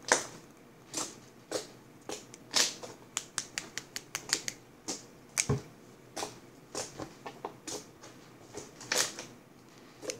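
Irregular light clicks and taps from a small capped bottle being handled in the fingers, with a soft low thump about five and a half seconds in.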